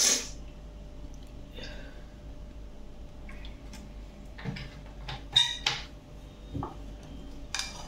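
Scattered light clinks and knocks of a glass bottle, a spoon and a hand against a glass mixing bowl of chicken marinade, the loudest about five and a half seconds in.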